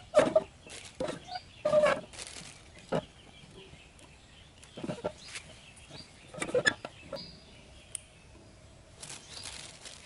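Chicken clucking in short, separate calls every second or so, with a brief high bird chirp near the end.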